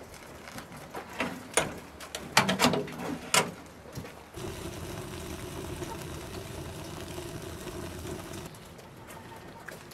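Firewood knocking and the thin sheet-metal door of a wood-burning stove clanking shut: several sharp knocks and clanks in the first few seconds. A steady low hum follows.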